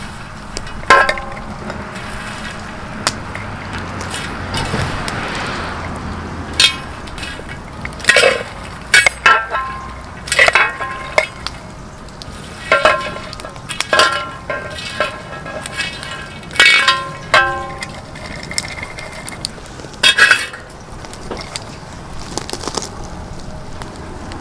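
Metal spatula scraping and clinking against a cast-iron pot-lid griddle while stirring popped popcorn, in irregular strokes, some of them ringing briefly.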